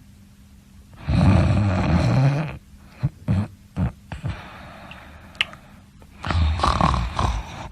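A person snoring. A long loud snore comes about a second in, then a few short sharp breath sounds, then another snore near the end.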